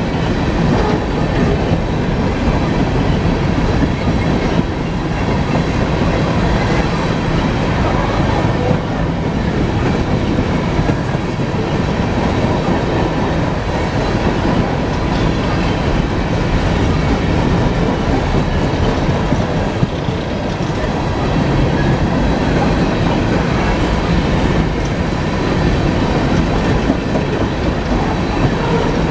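BNSF coal train rolling steadily past, its wheels clattering and clicking over the rail joints.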